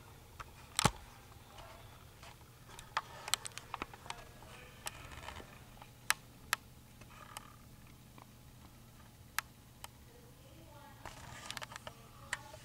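Scattered sharp clicks and light knocks in a quiet room, the loudest about a second in and a quick cluster a few seconds later, with faint murmured voices in the background.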